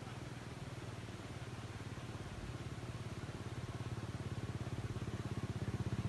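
A small engine running with a fast, even beat, growing louder toward the end.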